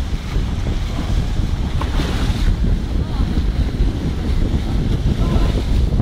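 Wind buffeting the microphone on the deck of a sailing catamaran under way, over the steady rush of the sea.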